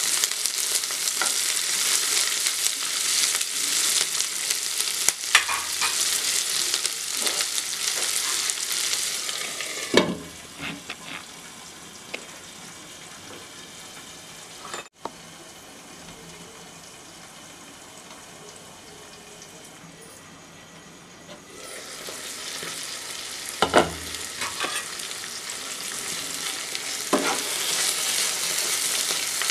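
Sliced onions, dried red chillies and curry leaves sizzling in hot oil in a non-stick wok, stirred with a metal slotted spoon that scrapes and clinks against the pan. About ten seconds in there is a clank and the sizzle turns muffled and quieter while a glass lid covers the wok; some twelve seconds later it is uncovered and loud sizzling and stirring clinks return.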